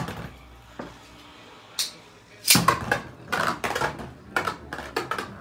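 Beyblade Burst spinning tops battling in a plastic stadium. After a few light clicks, a second top is launched in about two and a half seconds in, followed by a rapid run of clattering knocks as the tops strike each other and the stadium walls.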